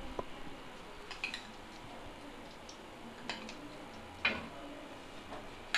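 A spoon clinking against a bowl and a steel kadhai as desi ghee is spooned into the pan. There are a handful of sharp, light clinks a second or so apart, the loudest about four seconds in.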